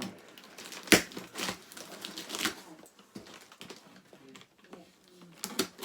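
Handling noise: a few scattered sharp clicks and taps with light rustling, the loudest about a second in and another pair near the end.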